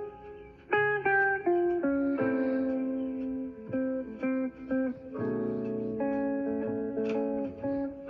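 Tablet alarm ringing: a plucked-guitar melody played through the tablet's speaker, with a brief lull near the start before the tune carries on.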